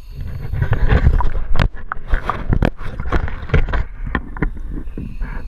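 Lake water sloshing and splashing against a camera held right at the surface, in irregular splashes, over a low rumble of wind on the microphone.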